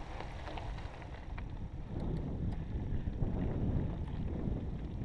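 Wind buffeting the microphone over the rumble of a mountain bike rolling along a dirt trail, louder from about two seconds in, with faint ticks of gravel and bike rattle.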